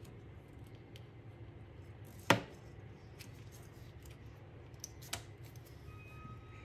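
Handling noise from hands working thread around a wooden paintbrush-handle slingshot frame on a tabletop: one sharp, loud click about two seconds in and a smaller one about five seconds in, with a few faint ticks over a low steady hum.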